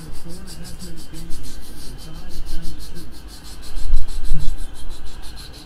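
Rubbing and scraping of a trading card box's packaging being handled and opened, with a few heavy low bumps about four seconds in.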